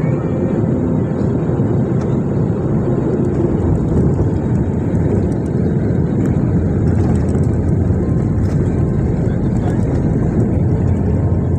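Airliner's wing-mounted jet engine and the rumble of the plane rolling fast along the runway, heard from inside the cabin: a loud, steady noise, heaviest in the low range.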